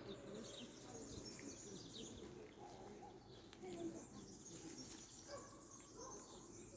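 Faint bird chirps, short and scattered, over low background noise.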